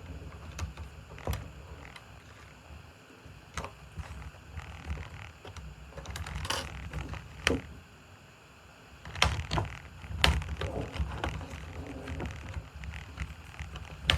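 Scattered clicks and light taps of hands working on a laptop, with a few sharper clicks in the middle.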